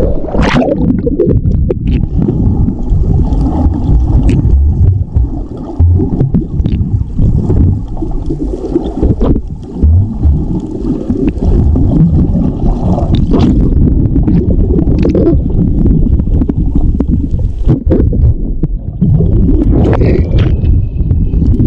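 Muffled rumbling, gurgling and sloshing of water around a waterproof action camera while swimming at and under the sea surface, with scattered small clicks and splashes.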